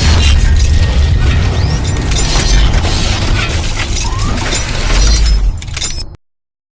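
Loud intro music with crashing, shattering sound effects and heavy bass, cutting off abruptly about six seconds in.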